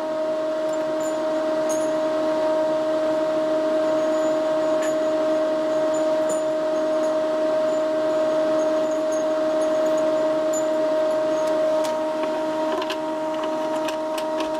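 A steady electrical hum with one clear pitch from the powered-up CB amplifier test bench, unchanging throughout, with a few faint ticks.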